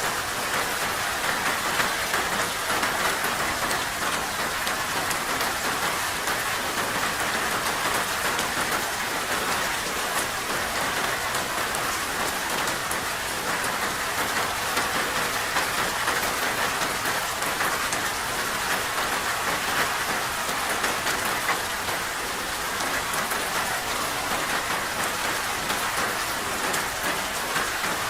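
Steady rain falling, a dense, even patter of many drops with no letup.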